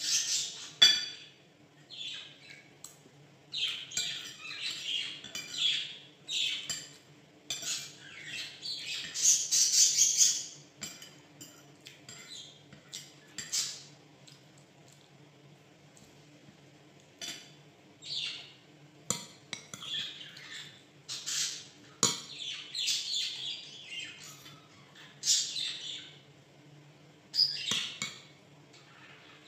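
A caged pet bird chirping and squawking on and off in many short, high calls, with an occasional clink of a spoon or fork against a dish.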